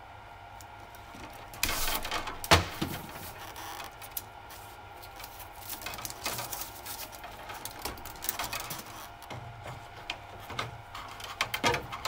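Romex (NM) cable being stripped and handled by hand: the plastic outer sheathing rustles and scrapes as it is cut and pulled off, with a sharp click about two and a half seconds in and scattered smaller clicks and rustles after.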